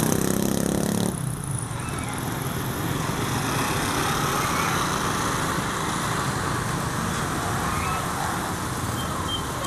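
A small motorcycle engine running close by, dropping away sharply about a second in, then steady street traffic noise.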